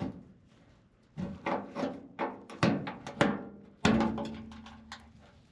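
A series of hand-tool knocks and clanks on metal, about seven in all. The last, near the end, is the loudest and rings on for about a second as it fades.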